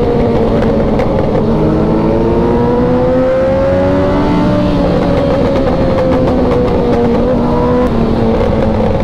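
Motorcycle engine running at a steady cruise. Its pitch rises gently for the first few seconds, then eases off a little, over a constant rushing noise.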